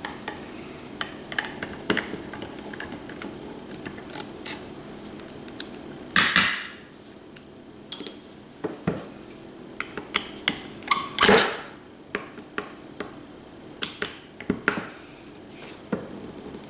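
Hand tools clicking and knocking on the metal parts of an old iron boiler circulator pump being taken apart: scattered taps and clinks, with two louder scraping clanks about six and eleven seconds in, over a steady low hum.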